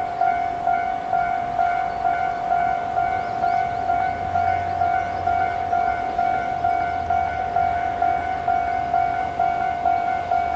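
Japanese railway level crossing's electronic warning bell ringing its standard alarm, a steady repeating 'kan-kan' strike about twice a second.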